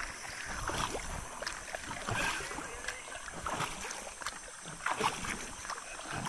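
Canoe paddles dipping into and pulling through calm water, each stroke a short splash with drips, coming irregularly about once a second.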